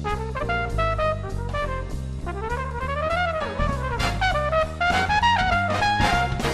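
Background music: a brass-led jazz or swing tune, with a trumpet melody sliding up and down over bass and drums.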